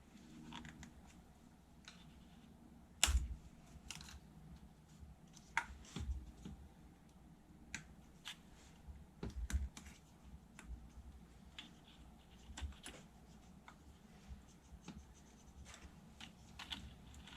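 Scattered clicks and light knocks of hands working the plastic electrical connectors and locking clips on an engine's VVT solenoids, the sharpest knock about three seconds in.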